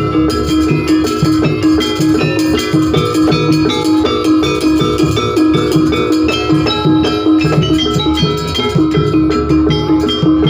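Jaranan pegon music from an East Javanese gamelan-style ensemble: struck metallophones repeating a fast, steady pattern of bright notes over dense kendang drumming, mixed with heavy bass.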